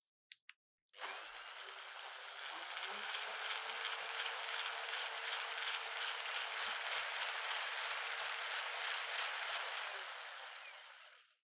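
Electric mixer with a wire whisk running steadily in a glass bowl, whipping egg whites into meringue as sugar is added: a constant motor hum with the whir of the whisk. It starts about a second in after two short clicks and fades out near the end.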